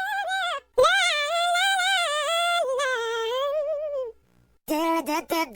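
A very high-pitched sung voice used as a meme sound effect: a short note, then a long wavering held note of about three seconds, a brief pause, and another high sung phrase starting near the end.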